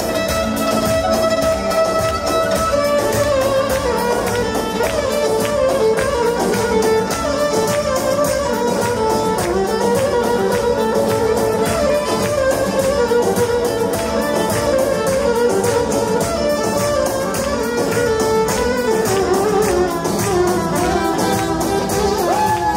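Albanian wedding dance music: a violin and a saxophone playing the melody over a steady beat.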